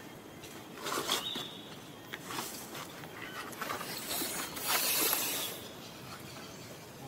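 Dry leaves and dirt rustling in a series of short scuffs as a baby macaque squirms on the ground, the longest and loudest near the end, with a brief high chirp about a second in.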